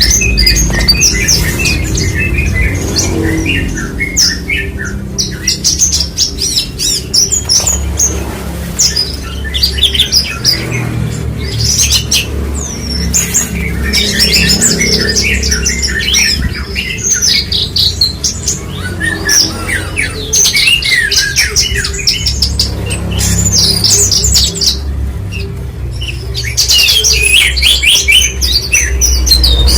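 Javan bush lark singing a long, fast stream of chirps and trills in phrases broken by short pauses, with a low steady hum underneath.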